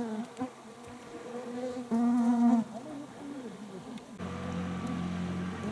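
Flying insects buzzing close by, their pitch wavering, loudest about two seconds in. A little after four seconds a boat's outboard motor starts and runs steadily.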